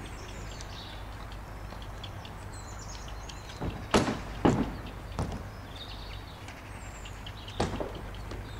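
Birds chirping over a steady low rumble, with a few short, loud noises about four seconds in, two close together, and another near the end.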